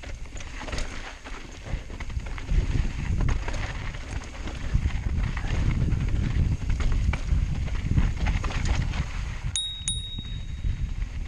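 Mountain bike rattling and rumbling down a rocky trail, tyres crunching over loose stones and the bike knocking over ledges. Near the end a bicycle bell is struck twice in quick succession and rings out, a warning to hikers ahead.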